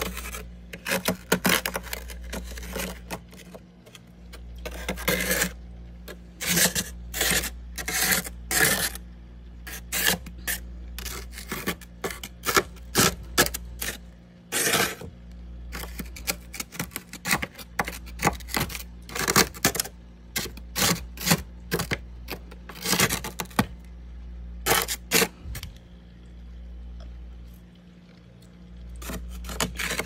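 Frost inside a freezer being scratched and scraped by hand with long fingernails: rough, irregular scraping strokes in quick clusters with short pauses. Under them runs a steady low hum.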